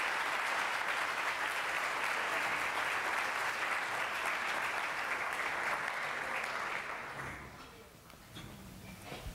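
Audience applauding, steady and sustained, then dying away about seven to eight seconds in.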